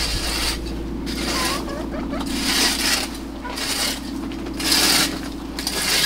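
Rake scraping across dry dirt and old bedding on the floor of a chicken run, in repeated strokes about one a second.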